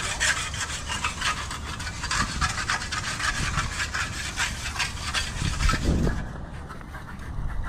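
Rapid back-and-forth scraping strokes of a hand tool rubbing across wet concrete, stopping about six seconds in.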